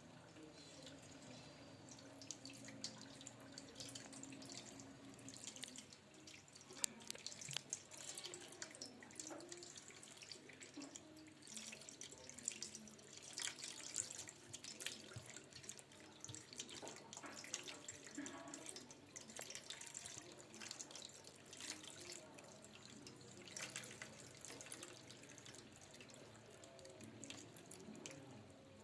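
Faint dripping water with scattered small clicks and crackles, from a plastic bottle of hot water denting inward under cold water poured over it as the steam inside condenses.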